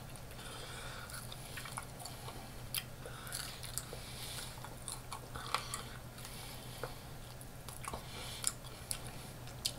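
A person biting and chewing crispy fried chicken wings, with scattered sharp crunches.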